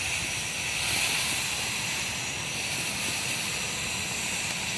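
A lit firework hissing steadily.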